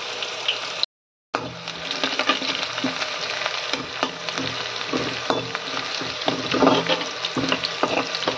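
Chopped garlic, onion and dried red chillies sizzling in hot mustard oil in a kadhai, stirred with a perforated steel spatula that scrapes and clicks against the pan. The sound cuts out completely for a split second about a second in.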